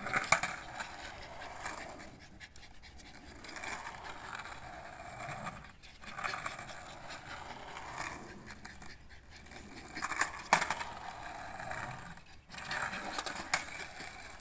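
Skateboard wheels rolling and scraping over concrete under a small dog, as a hiss that swells and fades every couple of seconds. There is a sharp clack just after the start and another about ten and a half seconds in.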